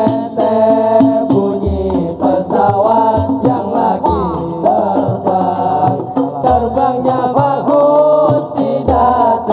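Hadrah Al-Banjari group singing sholawat in chorus through microphones, with the melody sliding and ornamented, over terbang frame drums and deep bass-drum strokes.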